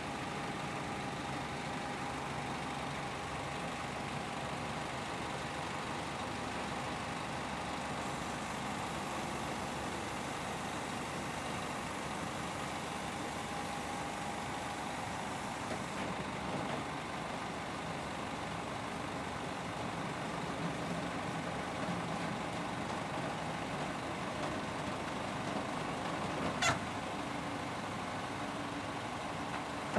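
Flatbed truck's engine idling steadily, with a single sharp click near the end.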